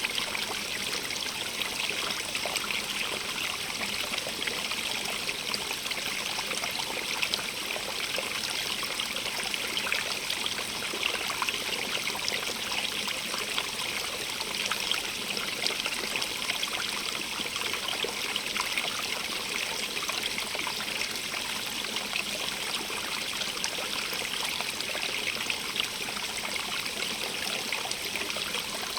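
A small stream running and trickling steadily, its water splashing as a continuous bright hiss.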